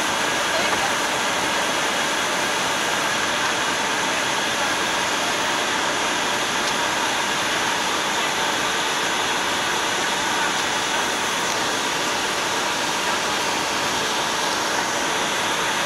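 Steady rushing cockpit noise of a Bombardier Global 6000 business jet in flight on approach: airflow and engine noise as a constant even hiss, with a few faint steady tones in it.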